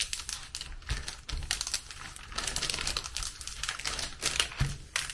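Palms pressing and sliding over a diamond painting canvas to flatten it, the plastic film over its glue crackling and rustling in a dense run of small ticks.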